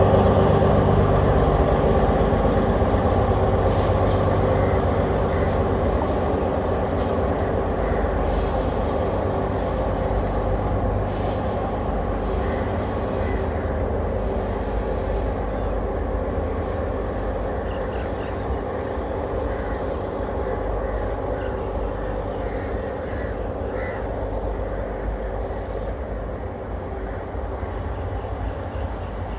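Diesel multiple unit running away along the track, its engine hum and the rumble of its wheels on the rails slowly fading as it recedes.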